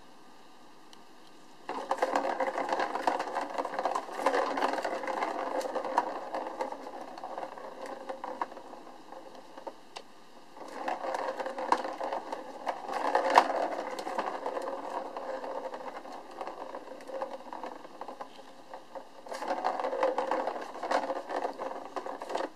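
A plastic ball rattling and clicking fast around the circular plastic track of a cat scratcher toy as a kitten bats it, in three long spells, the sharpest knocks about halfway through.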